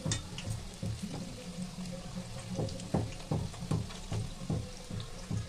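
Singhara-flour pakoras deep-frying in hot oil in a kadhai: a steady sizzle with scattered crackles and pops.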